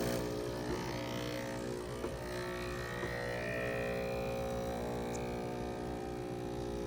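Breville Barista Express's pump running with a steady hum as it pulls a double shot of espresso.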